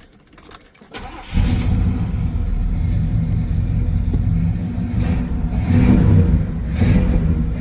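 1973 Mercury Marquis V8 catching about a second in and running at idle with a misfire, which the mechanic puts down to a faulty spark plug wire whose connector came off with the wire.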